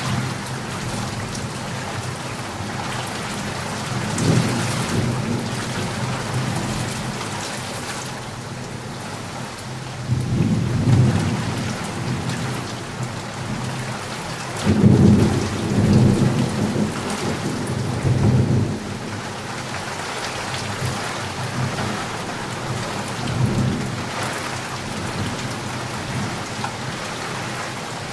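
Steady heavy rainfall with rolling thunder: several low rumbles swell and fade over the rain, the loudest a little past halfway through.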